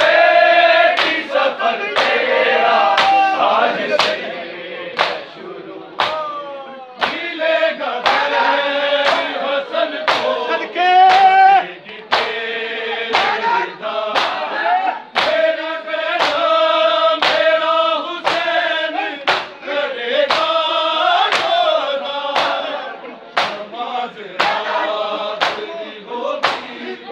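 A crowd of men chanting a Shia noha (Urdu lament) in chorus to the beat of matam: open hands striking bare chests in unison, about once a second.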